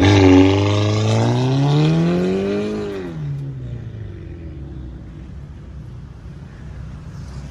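Volkswagen Golf GTI MK6's turbocharged four-cylinder engine through a custom full exhaust with valvetronic valves, pulling away: the note climbs for about two seconds, drops about three seconds in, then fades as the car moves off.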